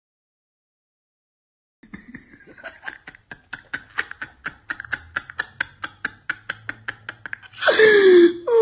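After a moment of silence, stifled giggling sets in: quick breathy pulses about five a second. Near the end a loud, drawn-out wail falls in pitch.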